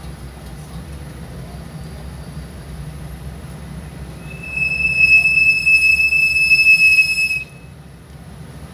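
Low steady rumble of a car idling in stop-and-go traffic. About four seconds in, a loud, steady, high-pitched squeal starts, holds for about three seconds and cuts off suddenly.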